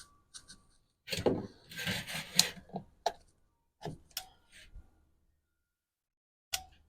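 Handling noise: rustling about a second in, then scattered clicks and knocks, with a sharp click near the end.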